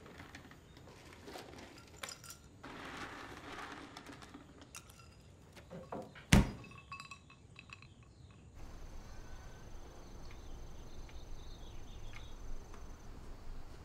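Glass clinking as things are moved about inside an open refrigerator, then a single sharp thud with a brief rattle of glass about six seconds in. After that comes a steady low outdoor hum.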